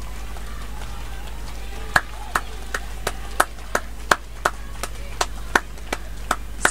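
Hand claps: a single pair of hands clapping in a steady rhythm of about three claps a second, starting about two seconds in, over a faint background of crowd noise.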